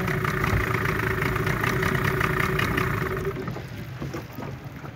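A boat engine running steadily, then dropping away about three seconds in, leaving a few faint knocks.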